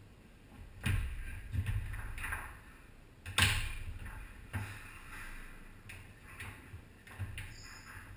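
Tornado foosball table in play: a series of sharp knocks and clacks as the ball is struck by the players' figures and hits the table walls, the loudest about three and a half seconds in.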